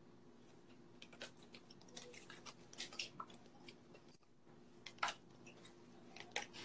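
Faint, irregular clicks and flicks of a deck of playing cards being handled, with a steady low hum underneath.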